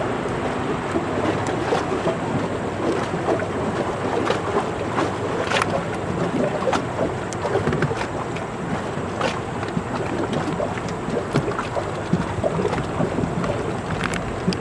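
A large lake freighter passing close: a steady rushing wash of water along its hull, with wind on the microphone and frequent small crackles and splashes.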